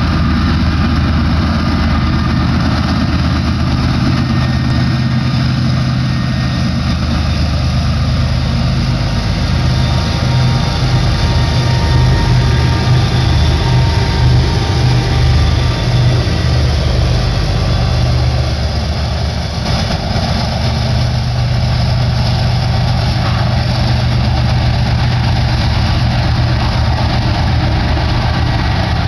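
BNSF freight train passing, its diesel locomotives running with a steady low engine drone that is loudest as they go by, about halfway through. After that, freight cars roll past with a rumble of wheels on rail under the engine sound.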